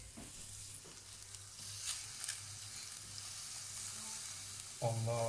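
Meat skewers and minced-meat patties sizzling on an electric grill, the fat crackling and spitting over the heating element. The crackle grows louder about a second and a half in.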